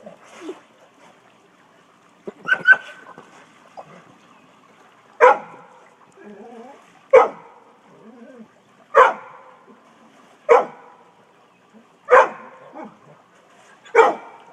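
A dog barking: a quick double bark, then six single sharp barks spaced roughly two seconds apart.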